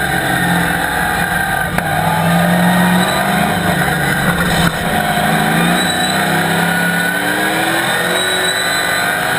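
Chevrolet ZZ4 small-block V8 of a Camaro Cup race car, heard from inside the cockpit at racing speed. Its pitch rises and falls several times as the revs climb and drop, with a short click near the middle.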